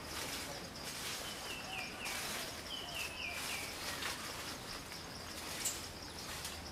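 Forest ambience: a steady high-pitched insect drone, with two short runs of descending bird notes, one about a second in and one about three seconds in, and a few brief rustles, the sharpest near the end.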